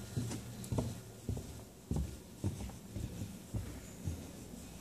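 Footsteps of a person walking at an even pace, short low thuds about two a second.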